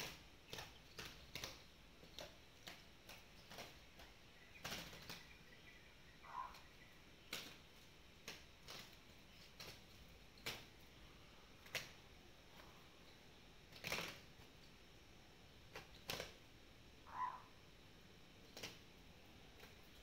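Zebra doves fighting: sharp wing slaps and flutters come in irregular clicks, roughly one a second, with a few louder strikes. A brief bird call sounds twice.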